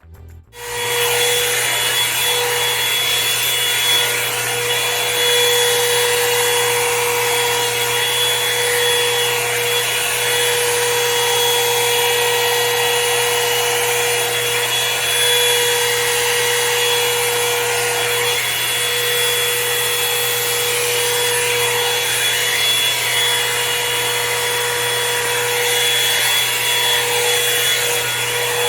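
Revlon One-Step hair dryer brush switched on about half a second in and running steadily: a loud blowing rush with a steady motor whine.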